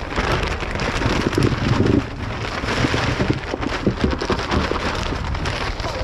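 A dense patter of small knocks with plastic rustling as potatoes are tipped from a plastic sack into a wooden box, busiest in the first two seconds.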